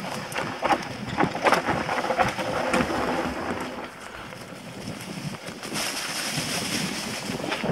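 Enduro mountain bike riding down a dirt forest singletrack: tyres rolling over dirt and dry leaves, with quick rattles and knocks from the bike over bumps in the first few seconds. Wind rushes across the helmet camera's microphone, growing into a steadier, brighter rush from about six seconds in.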